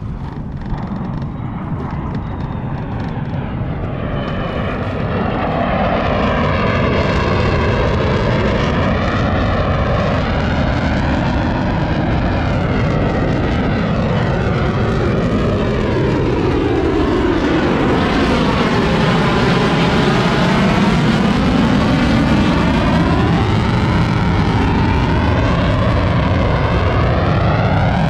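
Lockheed Martin F-35 Lightning II fighter jet flying over, its single F135 turbofan engine roaring. The roar builds over the first several seconds and then stays loud, with a swirling, phasing whoosh that sweeps down and back up in pitch as the jet passes.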